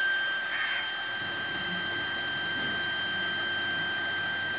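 Kirloskar 0.5 HP electric water pressure booster pump running steadily under power, its motor giving a high, even whine over a hiss.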